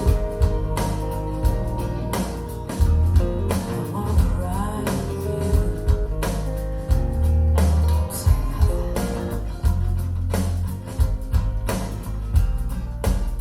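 Recorded music played through B&W 706 S2 bookshelf loudspeakers driven by a Luxman L-505uX II integrated amplifier: an instrumental passage of a pop-rock song, guitar over strong bass and a steady drum beat.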